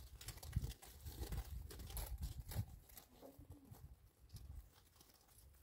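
A herd of goats moving about on stony, snow-dusted ground: irregular light knocks and scuffs of hooves, busiest in the first half.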